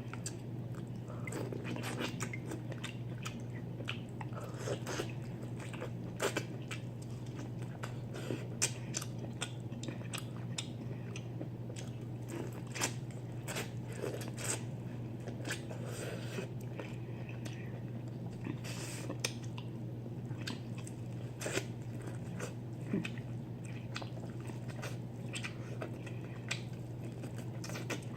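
A person eating seafood-boil food close to the microphone: chewing and lip smacking, with many short sharp clicks and crunches, over a steady low hum.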